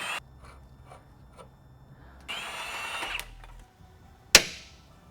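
A handheld power tool working the subframe bolts loose: it whirs, stops just after the start, then runs again for about a second around two seconds in, its whine falling as it stops. A single sharp metallic clank comes near the end.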